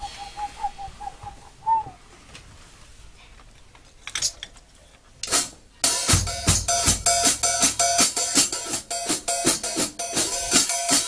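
Drum kit being played: after a short warbling tone that rises at its end, a couple of single hits, then about halfway through a fast, even beat on drums and cymbals that starts with a low bass-drum thump and keeps going.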